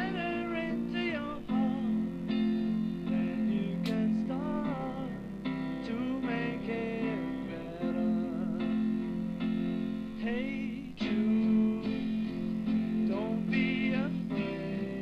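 Music: guitar chords with a wavering melody line over them.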